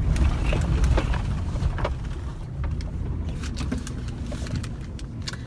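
Pickup truck engine running, a steady low rumble heard from inside the cab, with scattered sharp clicks and knocks over it.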